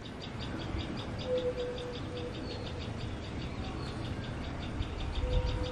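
Crickets chirping in a fast, even, high-pitched pulse over a low rumble. A low drawn-out call sounds twice, about a second in and again near the end.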